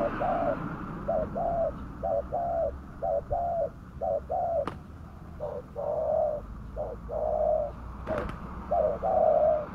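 Spotted dove (tekukur) cooing steadily: a long run of short, low coos in quick groups, the call of a decoy dove used to lure wild spotted doves. Two sharp clicks cut in, one about halfway and one about eight seconds in.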